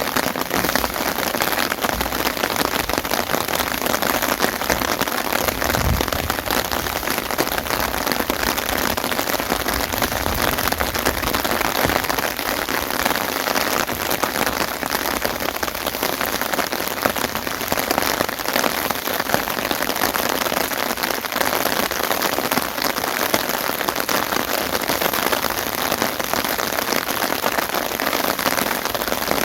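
Steady, heavy rain falling, a dense even patter of drops striking surfaces, with a couple of brief low thumps early on.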